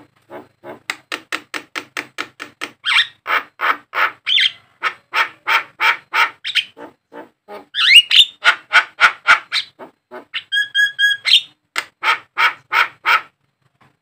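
Javan myna (jalak kebo) singing: a long fast run of short rasping, chattering notes, several a second, with a rising squeal about eight seconds in and a brief clear whistled phrase about ten and a half seconds in.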